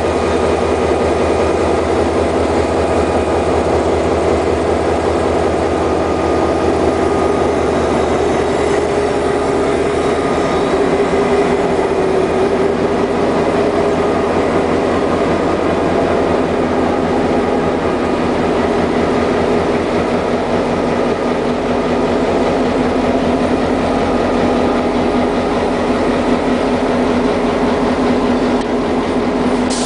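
EMD 645 diesel engine of an SD38M diesel-electric locomotive running steadily, a deep continuous throb.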